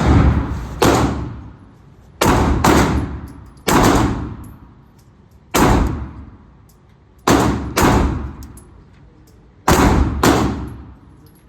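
Glock 45 9mm pistol firing about ten shots at a slow, uneven pace, some in quick pairs about half a second apart. Each shot is followed by a reverberating echo that dies away.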